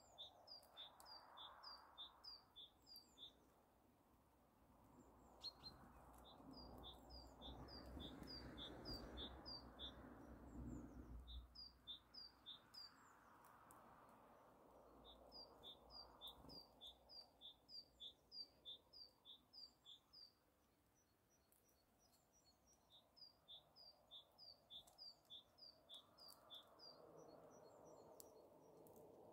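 Faint songbird song: a quick run of repeated two-note calls lasting a few seconds, sung about five times with pauses between. A faint background rumble swells in the middle.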